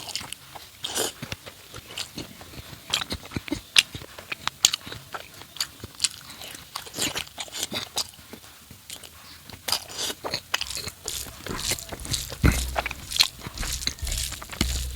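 Close-miked chewing and wet mouth clicks of someone eating fatty pork curry with rice and boiled mustard leaves, in short irregular smacks. Some low bumps come in near the end.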